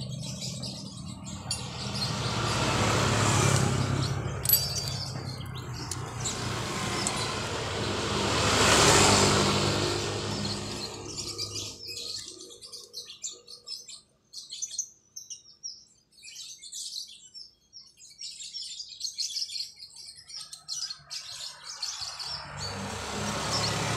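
Birds chirping outdoors. Two motor vehicles pass by in the first half, each swelling and fading; the second, about 9 seconds in, is the louder. After that it falls quiet except for scattered chirps, until an engine hum comes back near the end.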